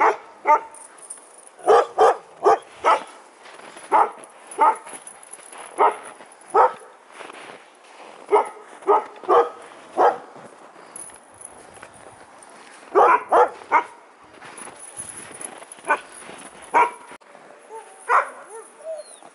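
Sled-dog huskies barking: about twenty short, sharp barks, some single and some in quick runs, with a break of a few seconds past the middle.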